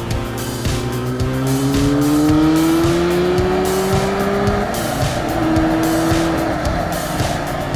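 Motorcycle engine pulling up through the revs with its pitch rising steadily, a short drop at a gear change about halfway, then holding a steady note, with wind rushing over the microphone. Background music with a steady beat runs underneath.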